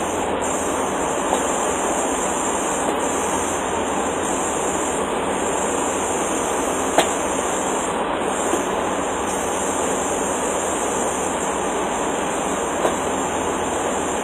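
Steady rushing background noise with a few faint, short clicks.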